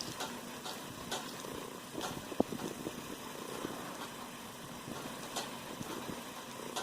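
1978 Lakewood S-223 box fan coasting down after being switched off: a soft, steady whir of the slowing blades with faint scattered ticks and one sharp tick about two and a half seconds in.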